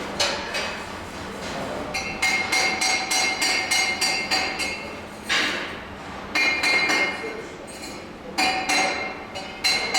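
A hammer striking a piece of metal in quick runs of blows, about four a second, each blow ringing. There are three runs: a long one from about two seconds in, a short one near the middle, and another near the end.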